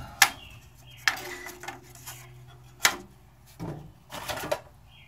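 Sharp metallic knocks and clinks as tools and wood are handled on a bandsaw's metal table: three crisp knocks in the first three seconds, then softer clattering.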